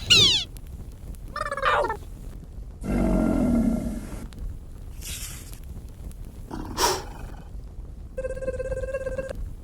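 A string of separate cartoon sound effects: quick falling whistles at the start, a downward sweep, a growl-like roar, a short hiss, a sharp hit, and a steady buzzing tone near the end.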